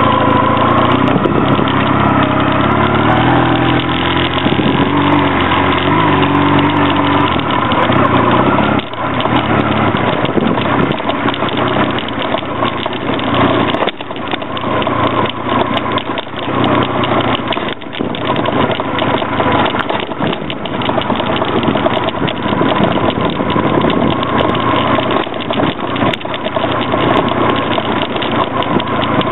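Honda Rebel 250 motorcycle riding on a rutted dirt and gravel track: the engine runs at a steady pace, its pitch clear for the first several seconds, then mostly covered by a rushing wind and road noise, with irregular knocks as the bike jolts over ruts and stones.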